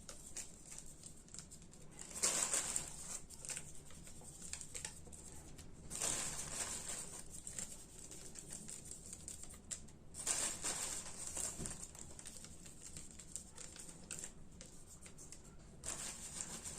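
Flaked almonds being scattered by hand over a meringue topping: light rustling and pattering that comes in four short bursts.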